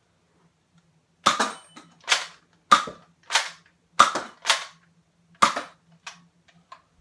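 Nerf Accustrike Quadrant, a spring-plunger dart blaster with a rotating four-dart barrel, being primed and fired over and over. About eight sharp plastic clacks and pops come in quick succession over some five seconds, starting about a second in.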